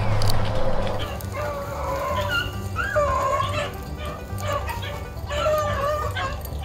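Rabbit-hunting dogs baying and yelping, a run of high, wavering cries starting about a second in, as the dogs work a rabbit's trail.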